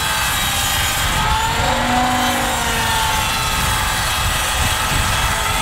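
Beam saw running and cutting a 45-degree cut through a 6x6 cedar post. Its motor whine sags in pitch under load around the middle and then rises again.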